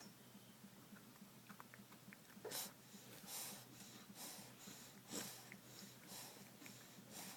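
Faint short sniffs or snorts of breath in a quiet room, starting a couple of seconds in and coming about once a second.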